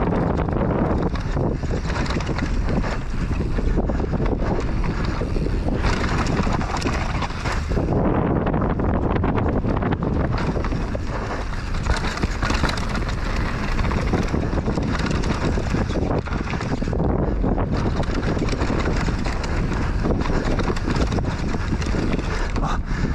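Wind buffeting the microphone while a downhill mountain bike descends a dirt trail at race speed, tyres scrabbling over loose dirt and the bike rattling over bumps with many small knocks.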